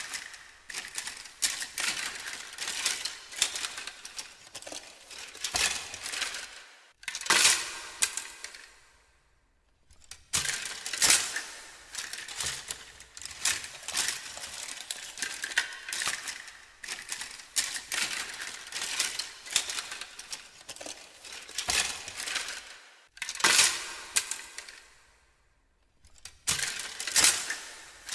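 Hands rummaging through a heap of small hard objects: a busy clatter of knocks, clinks and rustling, dying away twice for a moment before starting again.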